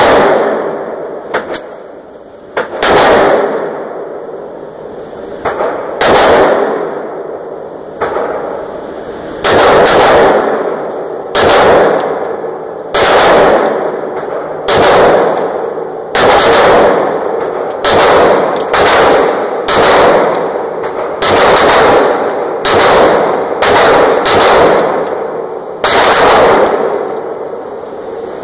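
Walther PPQ M2 .40 S&W pistol fired in slow, steady succession, about one shot every one to two seconds, each report ringing out and dying away in the indoor range's echo, with a few fainter cracks between.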